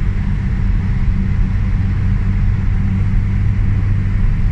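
Steady low rumble of engine and tyre noise heard from inside a moving car's cabin as it drives through a long road tunnel.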